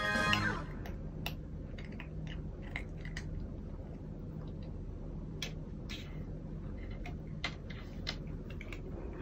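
British shorthair cat licking and chewing at the edge of a shelf: irregular small clicking mouth sounds over a low steady hum. Background music fades out in the first half second.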